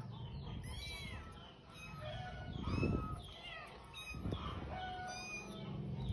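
Kittens mewing again and again, short high-pitched mews overlapping one another.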